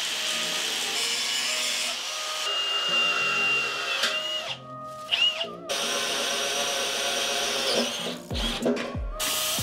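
Background music over power-tool work on steel: an angle grinder at first, then a cordless drill whining as it bores into the steel plate.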